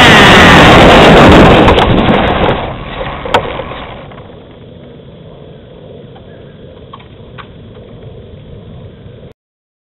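On-board sound of a Traxxas T-Maxx 2.5 nitro RC truck as it comes off a high-speed pass: the small glow engine's high note drops in pitch at the start while loud rough road noise from the dirt surface fades away as the truck slows. A single knock comes about three seconds in, then only a faint steady noise and a few small clicks while the truck sits stopped, cut off suddenly near the end.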